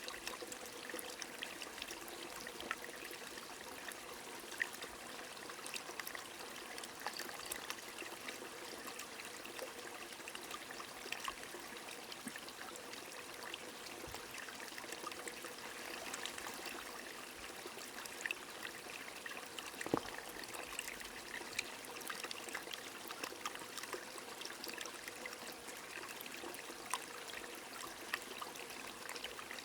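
Flowing stream and steady rain: an even rush of water with many small drop ticks scattered through it, and one sharper drop about twenty seconds in.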